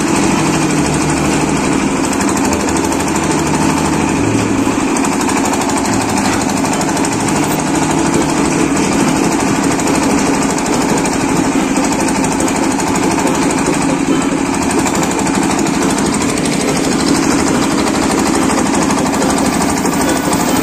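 Primax concrete mixer's engine running steadily with no trouble while the mixing drum turns.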